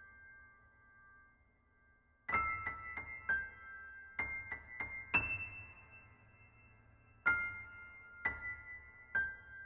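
Background music: a slow solo piano melody of single notes struck one after another and left to ring. It starts after a short lull, and one note about five seconds in is held longer.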